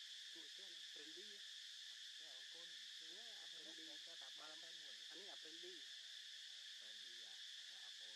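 Steady, high-pitched drone of insects in the trees, unbroken and even throughout.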